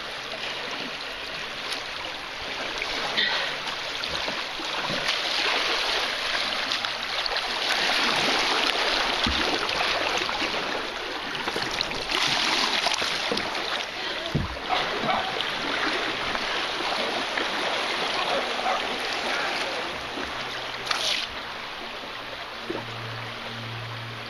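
Creek water rushing and splashing around a canoe, swelling louder through the middle, with a few dull knocks.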